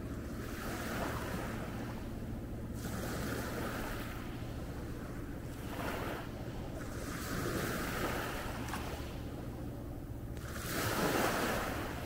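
Small sea waves washing up a pebble beach and drawing back in repeated hissing surges every two to three seconds, the largest near the end, over a steady low hum.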